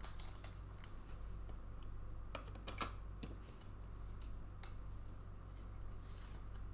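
Trading cards being handled and flipped through by hand: scattered light clicks and rustles over a steady low hum.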